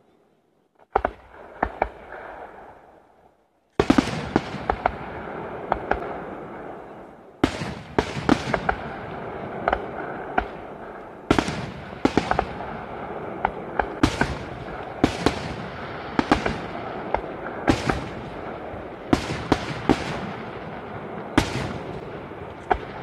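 Aerial firework shells bursting: after a second of near silence a few sharp bangs, then from about four seconds in a rapid run of bangs and crackles over a continuous rumbling echo, recorded on a mobile phone.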